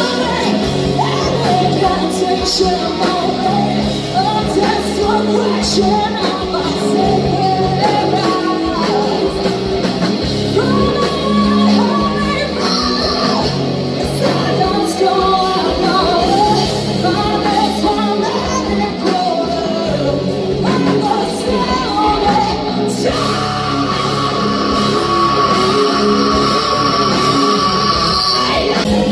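Rock band playing live, a female lead singer carrying the melody over guitars, bass and drums. The sound changes abruptly about 23 seconds in.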